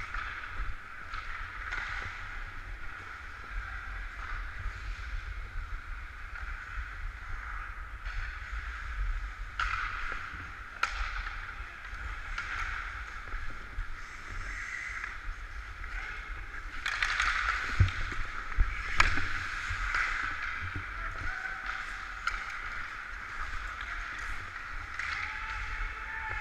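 Hockey skates scraping and gliding on rink ice in repeated strides, close up, with low wind rumble on the microphone. A few sharp knocks cut through, the loudest in a cluster about two-thirds of the way in.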